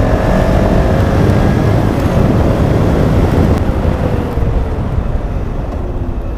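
Wind rushing over the microphone of a BMW F650GS motorcycle at road speed, with its single-cylinder engine running underneath. The wind noise eases about four and a half seconds in as the bike slows.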